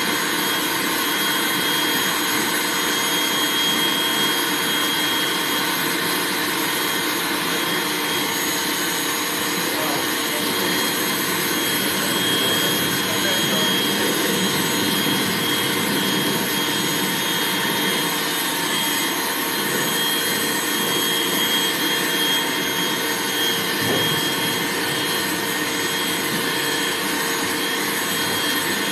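Dog grooming dryer running steadily: a constant rush of blown air with a steady high whine.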